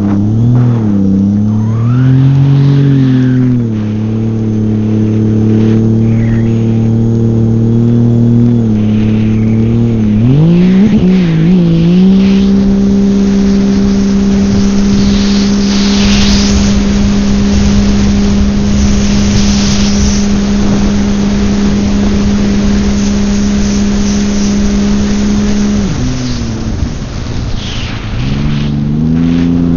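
Personal watercraft engine under way. The revs rise and fall for the first ten seconds or so, then climb and hold at a steady higher pitch. Near the end the engine backs off and builds again, over the rush of water and wind.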